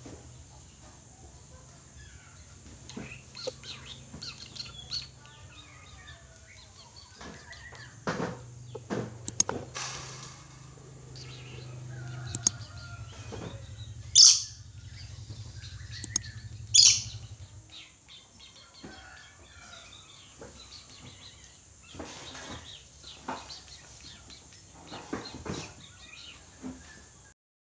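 Red lory (Eos bornea) calling: a running series of short chatters and squawks, with two loud shrill screeches about fourteen and seventeen seconds in. A low steady hum sits underneath and stops about eighteen seconds in.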